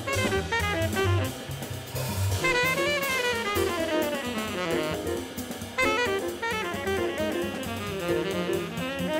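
Up-tempo 1960s acoustic jazz quintet recording: a horn solos in fast running lines over a busy drum kit with frequent cymbal strokes and a double bass.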